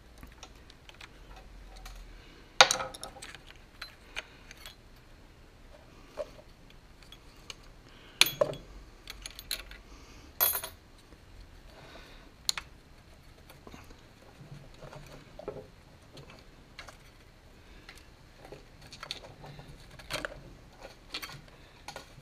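Screwdriver and small metal parts clinking and tapping against a 1966 Ford Galaxie steering column as its turn signal switch is worked loose. There are three sharp metallic clanks, about a quarter, a third and halfway through, among lighter clicks of handling.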